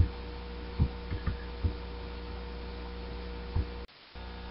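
Steady electrical hum in the recording, with about six short low thumps in the first few seconds and a brief cut-out of sound near the end.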